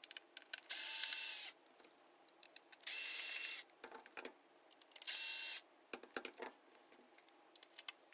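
A cordless power screwdriver running in three short bursts, each under a second and about two seconds apart, backing out the screws that hold a power supply to its mounting plate. Small clicks and handling noises come between the bursts.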